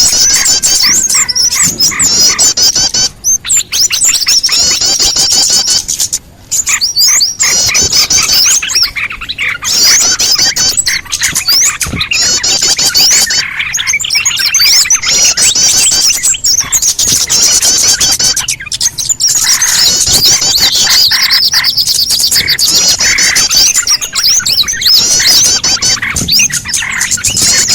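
Dense, loud twittering and chirping of many small birds calling over one another, a lure recording made to draw small birds in. It breaks off briefly twice in the first seven seconds.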